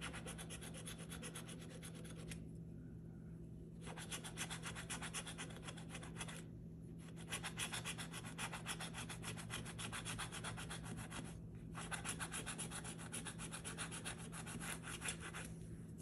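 A coin rubbing off the scratch-off coating of a paper lottery ticket in rapid back-and-forth strokes. The scratching stops briefly about two and a half, six and a half and eleven and a half seconds in.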